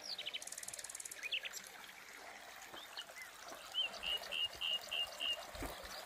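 Small birds chirping and trilling, ending with a run of about six quick repeated notes, over the faint trickle of spring water running into stone troughs.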